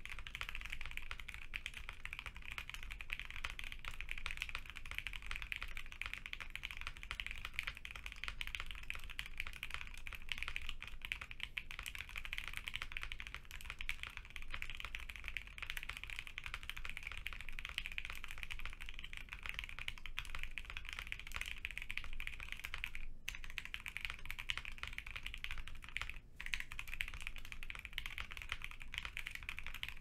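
Rapid, continuous typing on a mechanical keyboard fitted with Tecsee Jadeite/Diamond linear switches lubed with Krytox 205g0, in a gasket-mount 75% board with a brass plate, the keys bottomed out hard. A dense run of keystrokes that breaks off briefly twice, about 23 and 26 seconds in.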